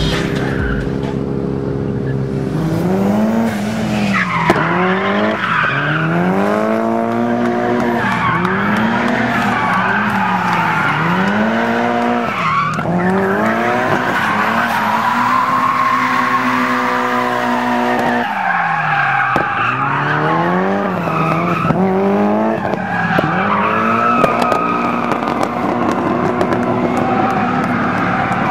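Mitsubishi Lancer Evolution IX's turbocharged four-cylinder engine revving up and down over and over as it drifts, with the tyres squealing and skidding. About two-thirds of the way through, the revs hold steady for a couple of seconds, then the rising and falling starts again.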